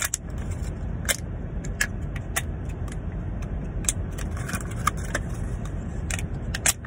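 Clear plastic blister-packaging bubbles being pressed in by fingers, popping with a sharp, really loud click about once a second. A steady low car-cabin rumble runs underneath.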